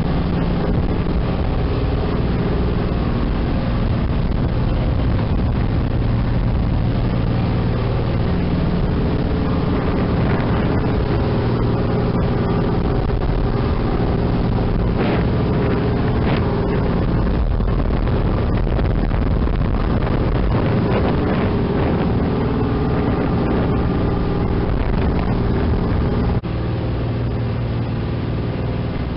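Sightseeing boat's engine running steadily under way, a constant low hum with the rush of the churning wake behind the stern. The level drops slightly near the end.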